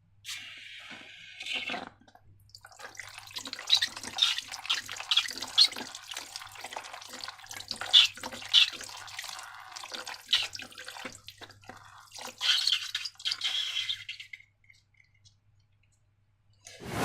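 Sticky slime squelching, with many small irregular wet clicks and pops.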